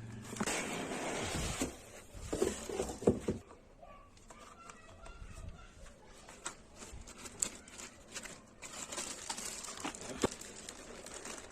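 Unboxing handling sounds: packaging rustling, then several knocks about two to three seconds in, followed by scattered light clicks and rustles of a laptop and its box being handled.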